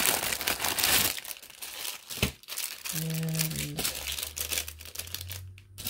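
Plastic wrapping of a sealed jewelry package crinkling loudly for about a second, then quieter crackles and rustles as the package is pulled open.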